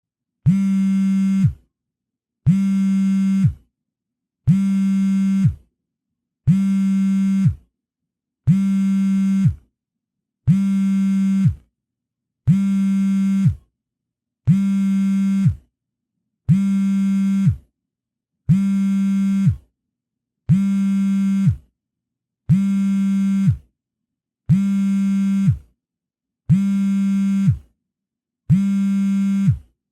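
Mobile phone vibrating: a buzz of about a second, repeated every two seconds with silence between, fifteen times. The buzz holds one steady low pitch.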